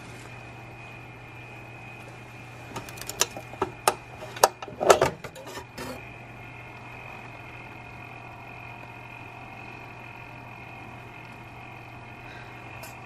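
A metal bread-machine pan and its wire handle clicking and knocking several times, loudest about five seconds in, as the pan is lifted out of the machine. A steady hum runs underneath throughout.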